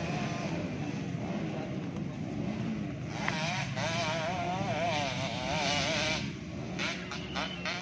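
Motocross dirt bike engines running over a steady drone. From about three seconds in, one bike revs with its pitch wavering quickly up and down for about three seconds, then gives a few short sharp blips near the end.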